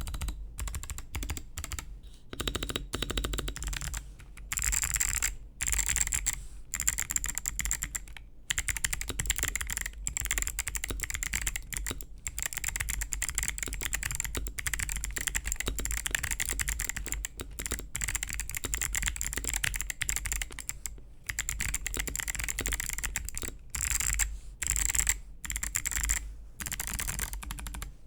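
Fast, continuous typing on a mechanical keyboard with Kailh BOX Summer switches: a dense run of keystroke clacks with a few brief pauses.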